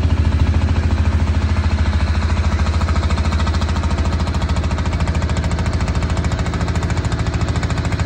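Boat engine running steadily under way, a fast, even pulse with a strong low throb.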